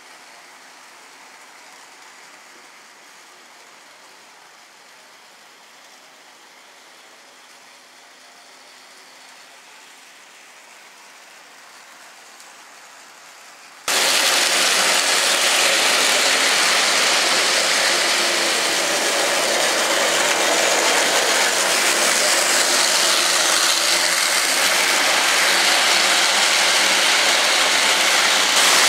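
HO-scale model trains running on track: a steady noise from the locomotive motors and wheels. It is faint at first, then suddenly much louder about halfway through.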